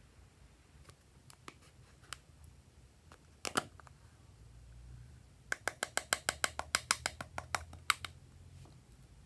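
A small heart-shaped plastic slime container being handled: its lid comes open with a sharp click about halfway through, then a quick run of about fifteen sharp plastic clicks and taps, roughly six a second, over the next few seconds.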